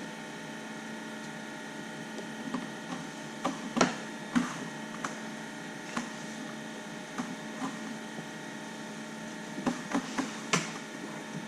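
Scattered clicks and knocks of an Alcantara-covered dash trim piece being pressed and clipped into a Tesla Model Y dashboard, the sharpest about four seconds in and again near the end, over a steady hum.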